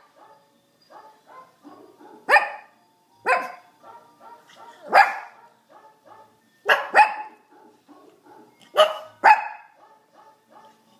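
Brussels Griffon barking: about seven sharp barks a second or two apart, some in quick pairs.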